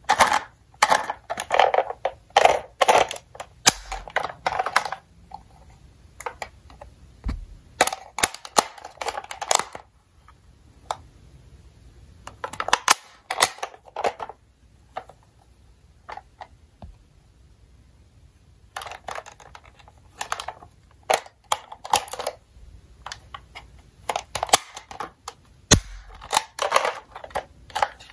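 Clicks, knocks and scraping of a toy ambulance being handled up close, in several bursts with short pauses between them.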